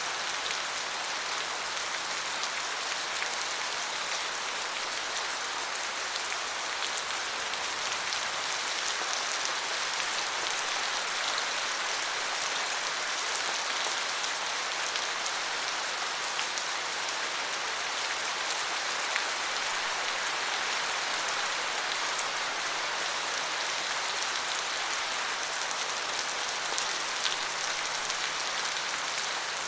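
Steady rain falling, an even hiss of many drops with fine scattered patters, unchanging throughout.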